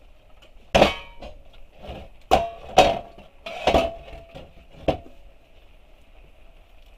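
An old sheet-metal cash box being handled on a steel workbench: about five sharp metal clanks, some ringing briefly, as it is picked up, turned over and knocked against the bench.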